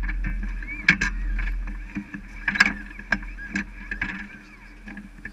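Irregular sharp knocks and clicks from hands working on a Formula SAE race car right beside the car-mounted camera, over a steady low hum.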